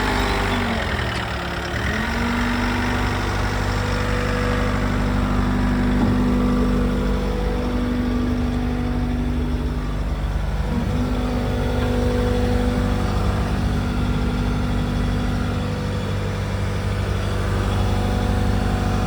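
Bobcat S62 skid steer's 68 hp Tier 4 diesel engine settling down from higher revs in the first two seconds, then running steadily at a lower speed. There is a brief dip in engine pitch about halfway through.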